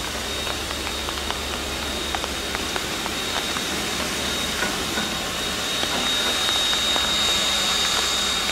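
Steady hiss of escaping steam from the Taiwan Railway DT650-class 2-8-2 steam locomotive DT668, with a thin high steady whine and a few faint ticks in it; it grows a little louder near the end.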